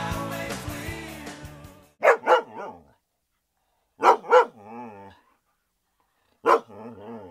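Music fading out over the first two seconds, then a dog barking: three times, two quick barks followed by a brief wavering whine.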